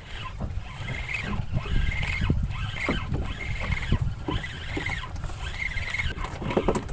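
Spinning reel being cranked steadily to wind in line with a small fish on, each turn of the handle giving a squeaky whir that swells about once a second, over a low rumble of wind and boat.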